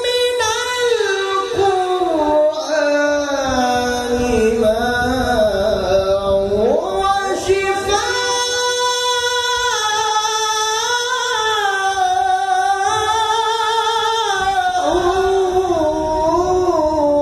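A male qari's voice reciting the Qur'an in melodic tilawah style. The voice carries on without a pause, with pitch slides and ornaments between long held notes.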